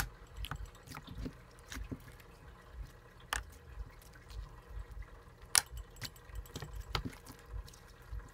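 Fluffy slime being squeezed, folded and stretched by hand, giving irregular sticky wet pops and clicks, one sharper pop a little past halfway.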